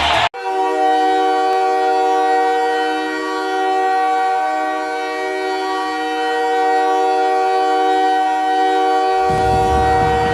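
Montreal Canadiens' goal horn: a loud air horn sounding a steady chord of several tones. It starts abruptly right after a cut and blasts continuously for about nine seconds. Near the end the goal song's music comes in underneath it.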